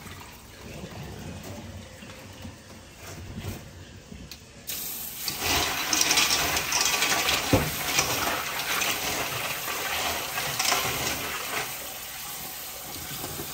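Water snails being washed by hand in a steel bowl in a stainless steel sink: water sloshes and shells click against the bowl. About five seconds in, the kitchen tap comes on suddenly and runs onto them.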